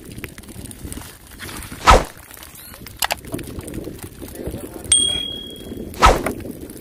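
Cast net full of fish being handled on concrete: scattered clicks and two sharp thumps, about two seconds and six seconds in, with low voices murmuring. A short bell-like ding sounds about five seconds in, the notification chime of a subscribe-button overlay.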